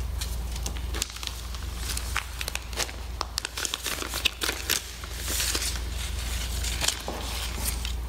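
Clear plastic bag crinkling and crackling irregularly as it is handled.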